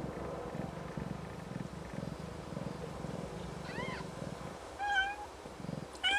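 A Snowshoe Siamese cat purring steadily, then three short, high-pitched mews in the last couple of seconds, the newborn kitten's cries. The purring drops out briefly around the second mew.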